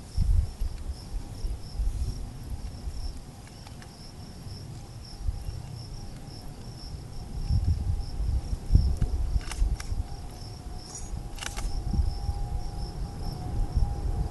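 Insects, crickets or similar, chirping in a steady pulsing high trill, over an irregular low rumble. Two short clicks come about two-thirds of the way through.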